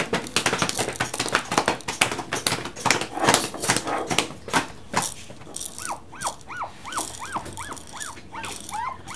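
Rapid, irregular knocking for about the first five seconds, then an animal's short, high yipping calls, each rising and falling in pitch, repeated about three to four times a second.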